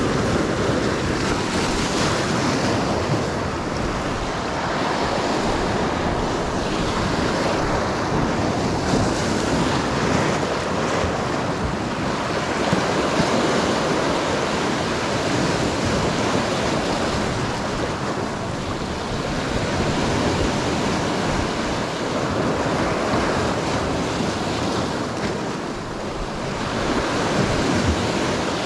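Atlantic surf breaking and washing over a low rock shelf, a steady rush of water that swells and eases with each wave.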